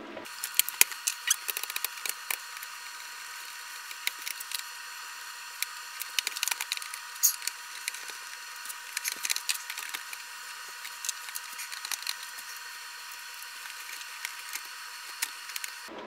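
Clusters of small clicks, knocks and scrapes of a screwdriver and plastic housing parts as a Kitchenaid drip coffee maker's cover is pressed on and screwed down.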